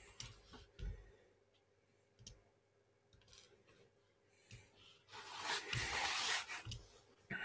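A few faint clicks of a computer mouse and keyboard, then a soft hiss lasting about a second and a half, starting about five seconds in.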